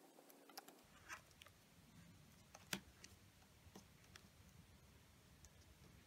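Near silence with faint, scattered crinkles and ticks from a folded one-dollar bill being creased and pressed flat by fingertips on a tabletop. The sharpest tick comes a little under three seconds in.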